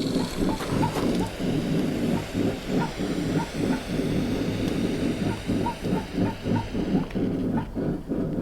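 A forge running with a steady low roar that pulses unevenly several times a second, with faint small ticks over it.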